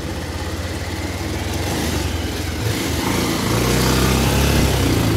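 Motorcycle engine running with a steady low pulsing note as it rides over a rough gravel road, growing louder from about three seconds in.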